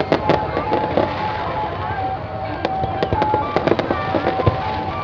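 Fireworks going off in quick, irregular bangs and crackles, thickest near the start and again in the second half, with music playing underneath.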